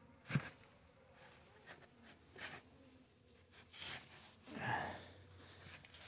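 Soft, scattered rustling and brushing of cotton cloths being lifted and shifted on top of a beehive, with a sharp click just after the start and a louder swish about four seconds in.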